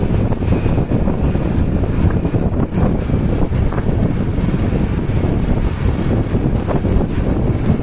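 Tour bus engine and full open exhaust rumbling steadily under way, with wind buffeting the microphone.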